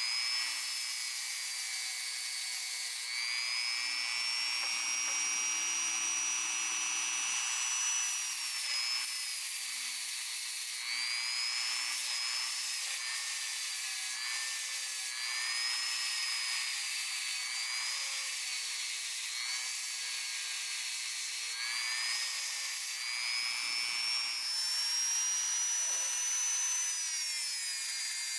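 High-speed rotary tool running steadily with a high whine whose pitch wanders slowly up and down, dipping and recovering several times.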